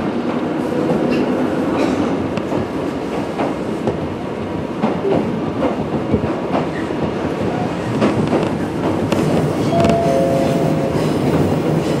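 Toyama Chiho Railway 17480-series electric train (ex-Tokyu 8590 series) running along the track, with a steady rumble and wheels clicking over rail joints. A short faint squeal comes about ten seconds in.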